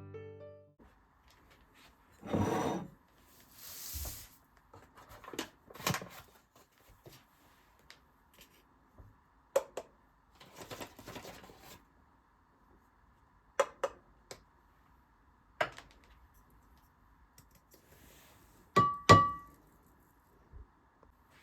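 Soft piano music ends in the first second, then scattered handling sounds: light knocks, clicks and rustles of objects being picked up and set down, with quiet gaps between. Near the end comes a sharper knock with a brief ringing tone, like a hard dish or utensil clinking.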